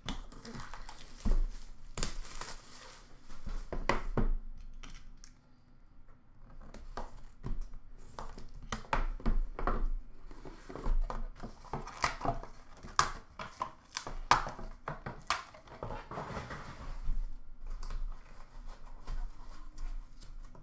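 Plastic shrink-wrap crinkling and tearing off a sealed cardboard trading-card box, then the box being opened and cards in hard cases handled: irregular rustles and sharp clicks.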